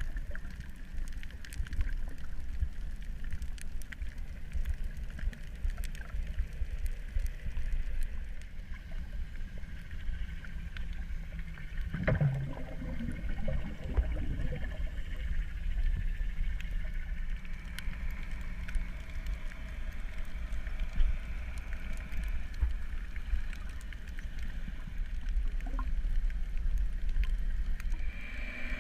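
Underwater ambience: a steady low rumble with scattered faint clicks, and one brief louder sound near the middle.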